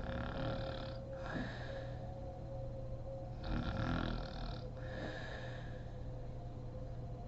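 A woman snoring in deep sleep: two slow breath cycles about four seconds apart, each a rough snoring inhale followed by a breathy exhale, over a steady background hum.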